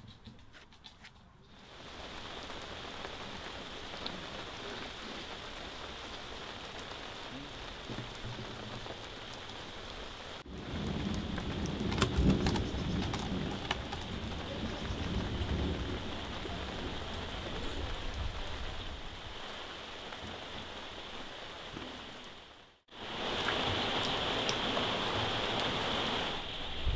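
Steady rain falling, an even hiss, with a deeper low rumble through the middle stretch. The sound drops out for an instant about ten seconds in and again a few seconds before the end.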